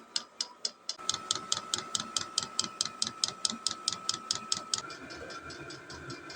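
A Vevor diesel heater's newly fitted 'silent' fuel dosing pump ticking rapidly and evenly, about five or six ticks a second, while the heater starts up. About a second in, the heater's blower and burner noise come in under the ticks, and near five seconds the ticks become fainter. The pump is still drawing air bubbles through the fuel line.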